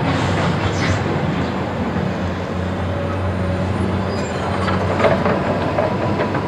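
Tracked excavator's diesel engine running steadily under load, with the steel bucket scraping and knocking against broken concrete rubble. A few sharper knocks come about five seconds in.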